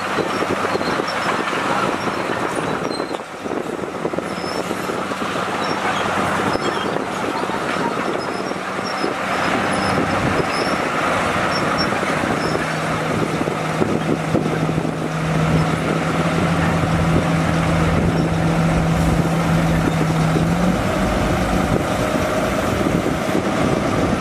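Bulldozer's diesel engine running steadily, with a continuous clanking rattle of tracks and metal. The engine note shifts about twenty seconds in.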